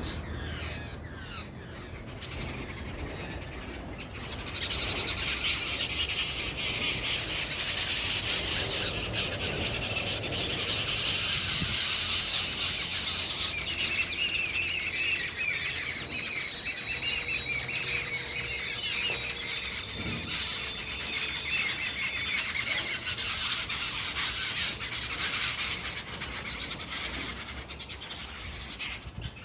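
Many birds chirping together in a dense, busy chorus of quick high calls, which grows fuller and louder about four seconds in.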